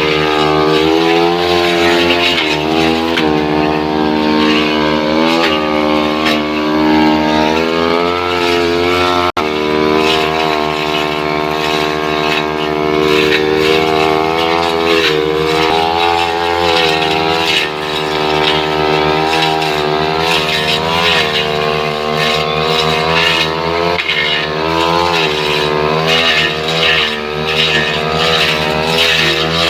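Two-stroke brush cutter engine running hard, its revs dipping and climbing back again and again as the blade is pushed into wood and eased off.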